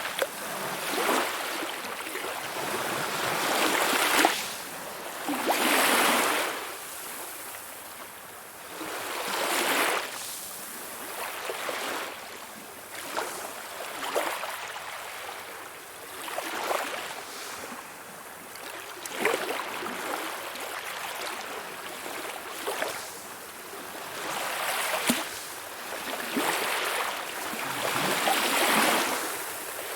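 Calm sea waves washing in and drawing back, a hiss that swells and fades every few seconds, with small sharp splashes as they break.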